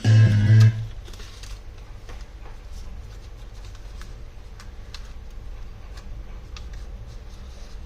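Guitar and bass music stopping abruptly less than a second in, followed by faint, irregular light clicks over a low steady hum.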